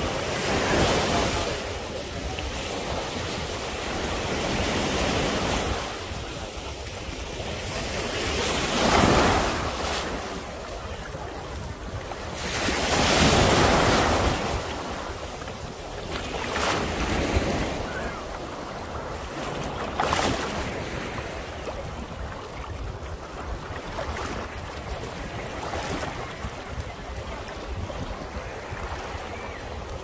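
Small sea waves breaking and washing up a sandy shore close by, swelling and fading every few seconds, loudest about a third and halfway through. Wind rumbles on the microphone underneath.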